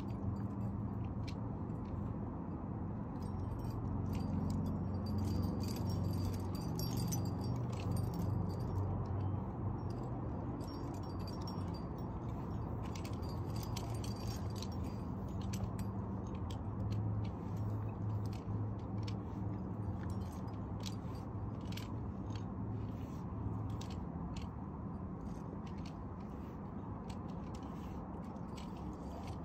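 Metal climbing gear (carabiners and cams on a harness) clinking and jingling in scattered small clicks, over a steady low rumble.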